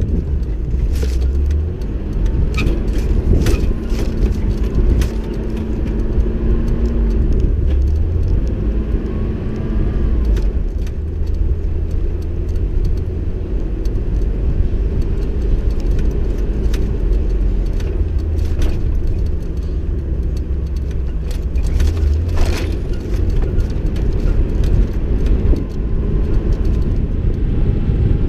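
Off-road vehicle driving over a rough dirt track: a steady engine and road rumble throughout, with scattered sharp clicks and knocks from the bumpy ground.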